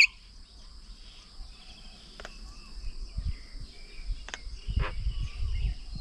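Outdoor ambience at a bird table: a steady high insect drone with faint scattered bird chirps and two sharp clicks. A low rumble builds over the last second and a half.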